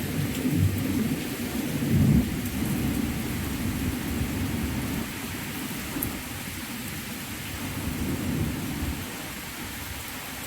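Torrential rain pouring steadily, with a deep rumble of thunder that is heaviest in the first few seconds and slowly dies away.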